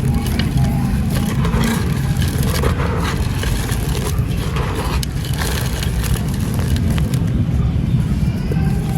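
Dry, gritty chunks being crushed and crumbling: many small crackles and crunches over a steady low rumble.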